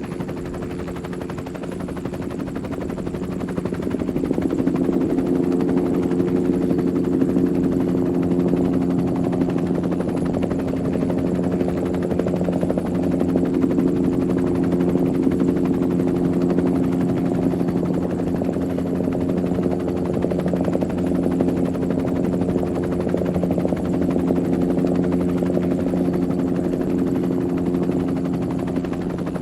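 Helicopter in flight: fast rotor-blade chop over a steady engine drone. It grows louder over the first few seconds, then holds steady.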